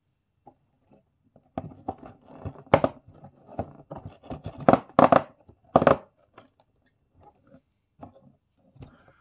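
An advent calendar's cardboard door torn open, then its small plastic parts bag crinkled and ripped open. This makes an irregular run of sharp crackles and tears that are loudest in the first half and thin out toward the end.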